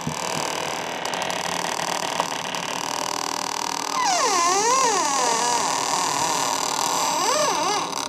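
Experimental electronic music: a steady, noisy hiss, joined about halfway through by a wavering tone that swoops up and down in pitch for about a second and a half, then swoops again briefly near the end.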